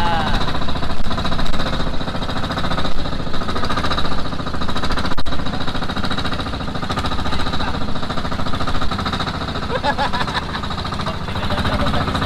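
Engine of a motorized outrigger boat (bangka) running under way, heard on board as a loud, steady, rapid chugging.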